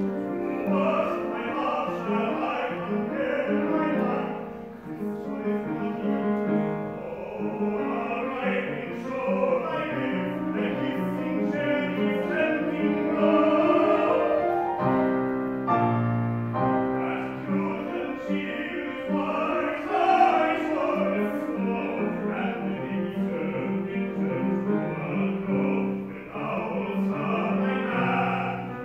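Operatic singing by classically trained voices with piano accompaniment, a staged opera scene performed live in a hall.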